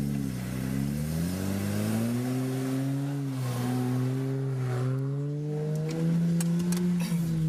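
Nissan Patrol 4WD's engine revved hard under load as it claws up a muddy hill in two-wheel drive. The revs climb over the first couple of seconds, then hold high and waver up and down, settling to a steadier pitch near the end.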